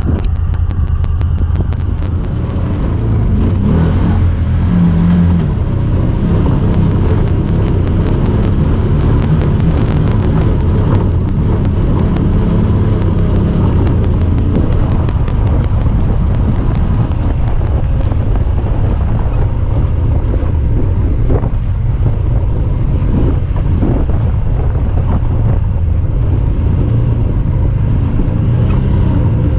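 Honda Talon 1000R side-by-side's parallel-twin engine running steadily as it drives, a low drone. Through roughly the first two-thirds there is also a rapid high clicking, weird noises that the uploader puts down to the camera.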